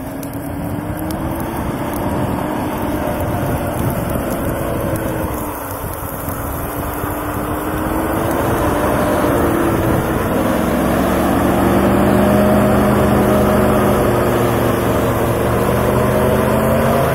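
All-terrain vehicle's engine running under load as it drives off-road, its pitch wavering up and down and climbing and growing louder in the second half.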